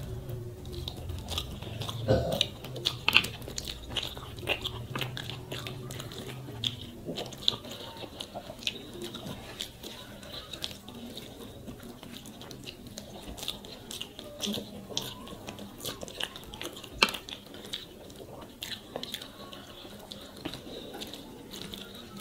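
Close-up eating sounds: fingers mixing rice with fish and curry on a plate, and chewing, with irregular small wet clicks and smacks; one sharper click about three quarters of the way through.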